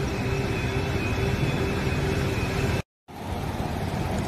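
Steady motor-vehicle engine noise with two faint steady tones in it. It is broken by a sudden split-second gap of silence about three seconds in, then carries on much the same.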